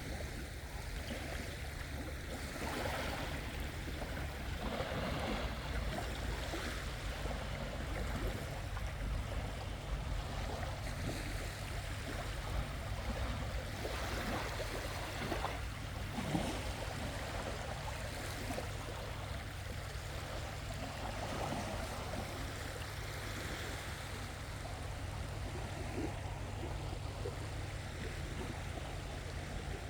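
Sea waves washing onto the shore, a steady wash of water over a constant low rumble.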